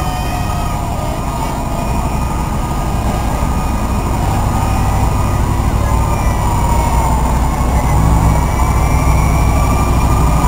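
Fire truck driving slowly past with its engine running, the rumble growing louder toward the end, while a fainter siren rises and falls behind it.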